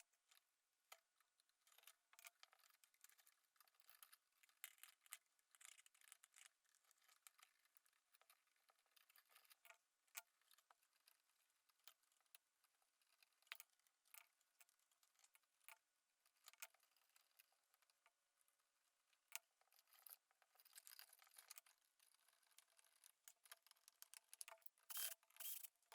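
Near silence, broken by faint scattered clicks and ticks, with a slightly busier cluster of clicks near the end.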